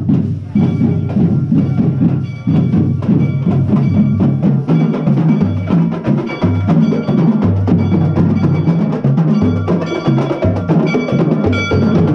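Music with a steady percussion beat, a moving bass line and repeating high ringing tones.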